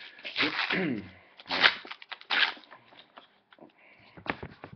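Small cardboard box being handled and opened: the cardboard rustles and scrapes in several short bursts.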